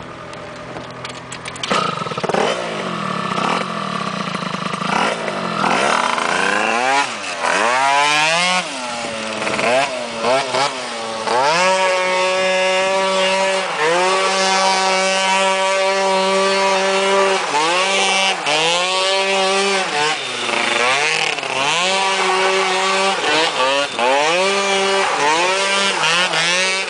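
Small 100cc ATV engine with a CVT (Dr.Pulley HiT clutch and SR1512 sliding rollers) revving up and down repeatedly as the quad accelerates and slows, the pitch sometimes holding steady for several seconds while it pulls. It starts lower and quieter, then climbs sharply about two seconds in.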